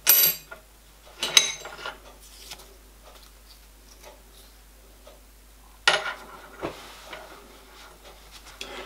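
Stainless steel bar stock clinking and knocking against a steel machine vise as it is handled. There are three sharp metallic knocks: at the very start, about a second and a half in, and about six seconds in, with lighter clinks between them.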